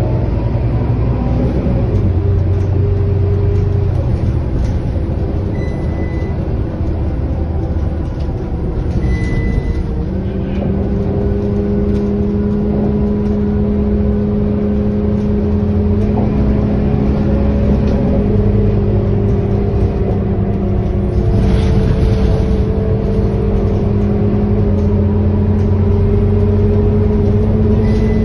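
Scania K230UB city bus's diesel engine and drivetrain heard from inside the passenger cabin while the bus is driving: a steady low rumble, joined about a third of the way in by a steady whine that slowly climbs in pitch as the bus gathers speed.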